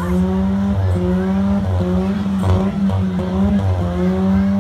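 Demolition derby car engines revving hard, their pitch rising and falling unevenly as a minivan and a pickup truck push against each other under load.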